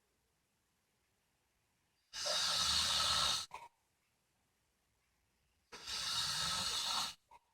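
An 89-year-old woman snoring: two snores about three and a half seconds apart, each about a second and a half long, with a brief second puff right after each and silence between.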